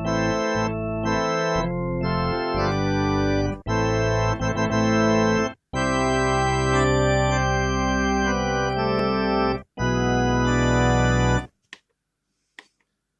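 Kurzweil K2000 synthesizer playing an organ-type factory program dry: a series of held chords, each let go briefly before the next. The playing stops a couple of seconds before the end.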